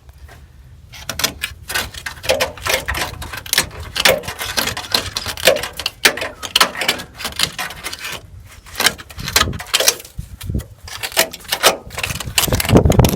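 Irregular clicking and knocking, several small clicks a second, from hand tools working the door hinge screws on a 1966 VW Beetle. A louder, denser noise comes in near the end.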